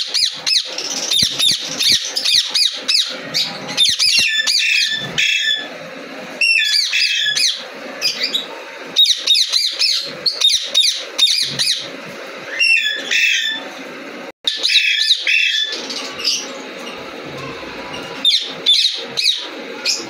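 Aviary parrots chattering and squawking: rapid strings of short, high-pitched chirps and squawks, coming in clusters with short pauses between them.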